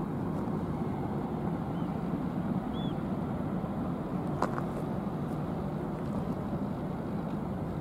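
Steady low rumble of ships' engines and machinery across the harbour, with a faint short chirp near the middle and a single click soon after.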